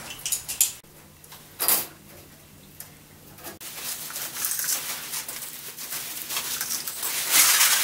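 Plastic bubble wrap rustling and crinkling as it is handled and smoothed over a board, with a sharp tap a little under two seconds in. The rustling grows louder near the end.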